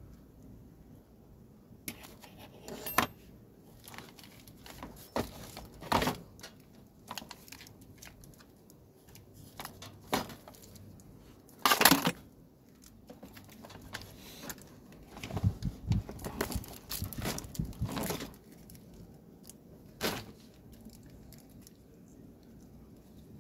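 Handling noise from the plastic-framed control board of an opened Panasonic induction rice cooker and small hand tools: scattered clicks, taps and rustles, with the loudest clatter about halfway through.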